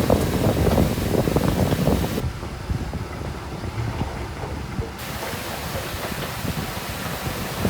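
Heavy earthmoving machinery rumbling, with wind buffeting the microphone. The first couple of seconds are rough and crackly, then the sound settles duller and steadier.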